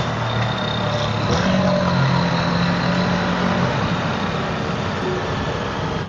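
Ducati Multistrada V4 S's V4 engine running steadily at cruising speed, under a constant rush of wind and road noise.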